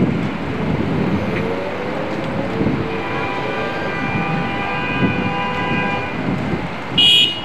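City street traffic noise. In the middle a pitched tone holds for about three seconds, like a vehicle's brake squeal or horn, and near the end comes a brief, loud, high-pitched squeal.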